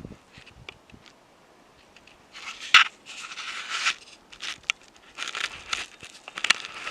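Snow crunching in irregular bursts, with a sharp crack about three seconds in as the loudest moment.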